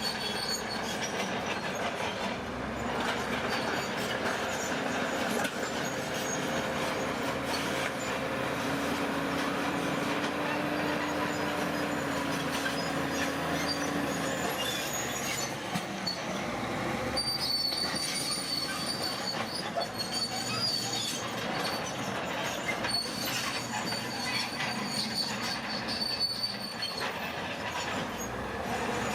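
Heavy earthmoving machinery at work: a diesel engine running steadily under a continuous grinding, clanking din, with thin high metallic squeals through the second half.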